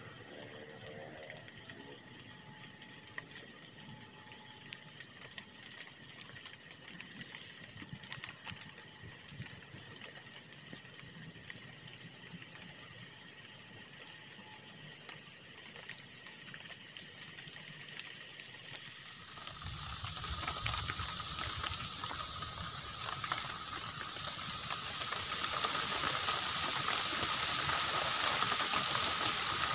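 Faint, steady high-pitched outdoor background. About two-thirds of the way in it gives way abruptly to a fire of dry grass and twigs burning with a loud, steady hiss and scattered crackles.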